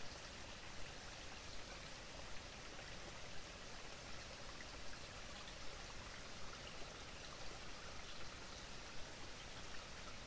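Faint steady outdoor ambience: an even rushing hiss with scattered soft ticks.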